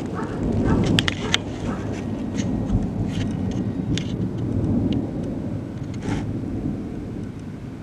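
Thunder rumbling after a close lightning strike. It swells about a second in and again around five seconds, eases off near the end, and has scattered sharp ticks over it.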